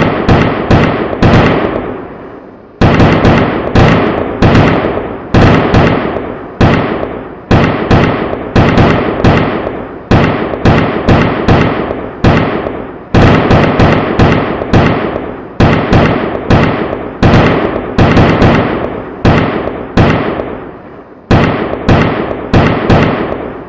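Power blast firecrackers going off in a long, irregular series of loud bangs, each followed by a short echoing tail, with a brief lull about two seconds in before the bangs resume.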